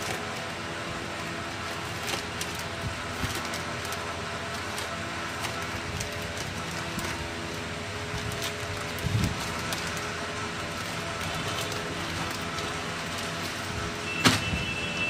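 Clear plastic polybag crinkling and rustling in scattered bursts as hands work it open, with a sharp, louder rustle near the end as the shirt is pulled out of the bag. A steady hum runs underneath.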